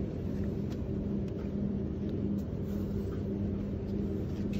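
Steady low machine hum with a constant pitched tone, with a few faint light clicks.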